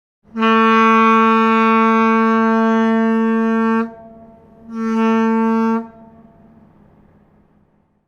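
Ship's horn sounding one long blast of about three and a half seconds, then a short blast of about a second, dying away over the following two seconds.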